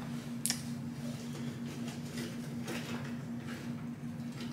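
Room tone: a steady low hum with a few faint clicks and rustles scattered through it.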